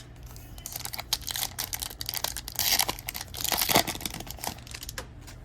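Plastic trading-card pack wrapper crinkling and being torn open, with many small clicks and rustles from the cards being handled. The tearing is loudest about halfway through.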